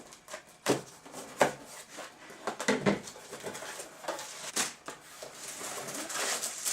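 A cardboard box being cut open with a knife and the packaging handled: a series of sharp knocks and scrapes, then rustling of packing material near the end.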